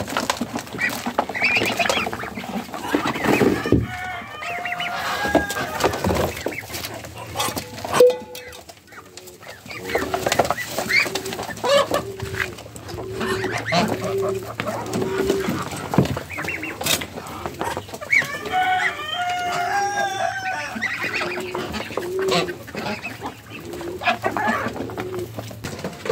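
Chickens clucking in runs of short, even notes, with two bouts of louder, higher calls, while a flock pecks feed from a plastic basin. Sharp clicks of beaks knocking on the basin run through it.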